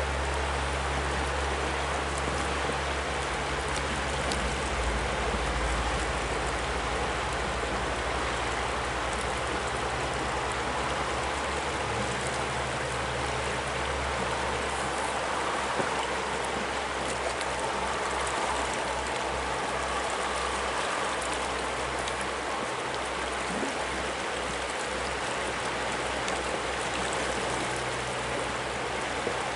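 A river flowing past, a steady rush of moving water.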